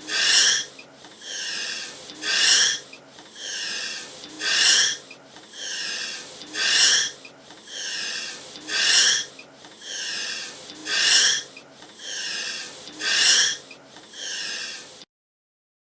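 Heavy, rasping breathing: a short loud breath, then a longer quieter one, repeating about every two seconds. It cuts off abruptly near the end.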